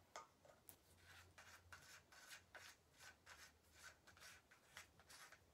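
Faint, irregular clicks and rubbing, a few a second, from a 13 Fishing Concept A baitcasting reel being handled and seated onto a casting rod's reel seat.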